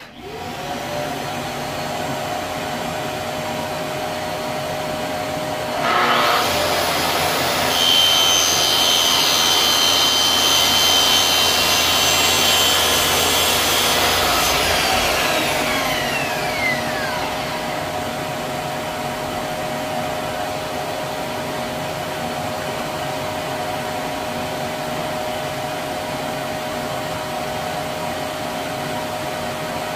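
A shop vacuum hooked to the saw's dust port starts with a short rising whine and runs steadily throughout. About six seconds in, a Makita plunge-cut track saw starts and cuts a shallow rebate groove for a drawer bottom into a drawer-side board for about eight seconds, then winds down with a falling whine while the vacuum keeps running.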